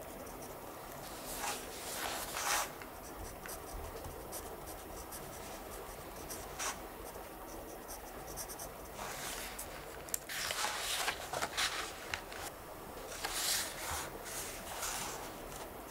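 Pen scratching across notebook paper in short bursts of writing with pauses between them, the longest run of writing about two thirds of the way through.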